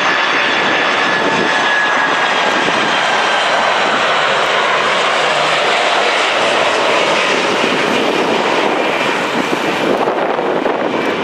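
Boeing 747-400 jet engines on final approach, gear down, passing low overhead. A loud, steady jet noise with a high whine that slowly drops in pitch as the airliner goes by.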